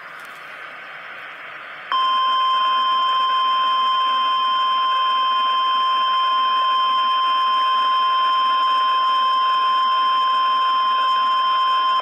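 NOAA Weather Radio warning alarm tone: a single steady, loud high tone that starts abruptly about two seconds in and holds unchanged for about ten seconds, over radio hiss. It is the signal that a warning message is about to be broadcast.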